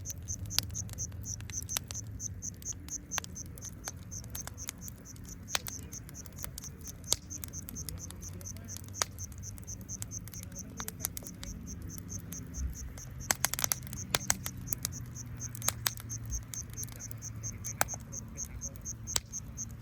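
A wood fire crackling, with irregular sharp pops and a quick cluster of cracks about two-thirds of the way through. Under it, insects chirp in a steady, rapid, even pulse.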